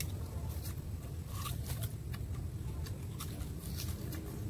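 Sugarcane being bitten and stripped with the teeth: scattered short crunches and cracks of the rind and fibres tearing, over a low steady rumble.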